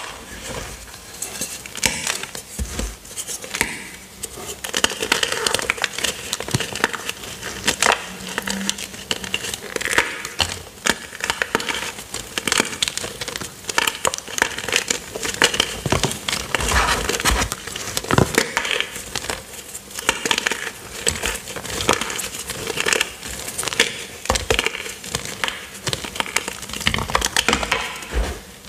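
Hands crushing and crumbling blocks of gym chalk dusted with cornstarch: continuous irregular crunching and crackling as chunks snap and grind into powder.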